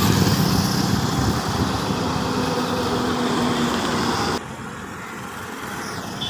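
Motor vehicle engine and road noise, slowly fading, cut off abruptly about four seconds in, leaving quieter roadside traffic ambience.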